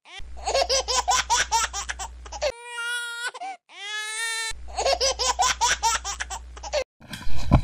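A young man alternately laughing and crying: a run of rapid laughter, then a drawn-out wailing cry of about two seconds, then rapid laughter again.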